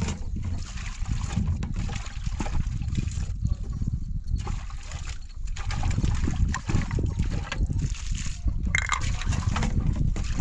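Water sloshing and splashing irregularly.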